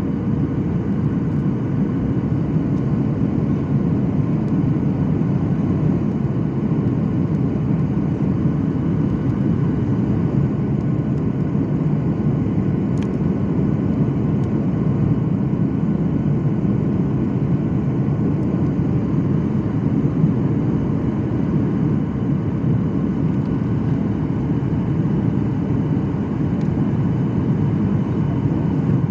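Jet airliner cabin noise heard from a window seat over the wing during descent: a steady, low rumble of engine and airflow with a faint steady whine.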